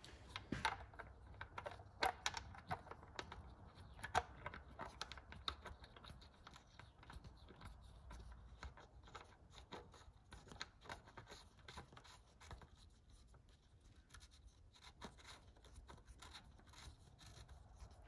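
Small clicks and scratches of metal parts being handled as the VANOS unit's screw caps are threaded on by hand, quick and clustered for the first several seconds, then sparse.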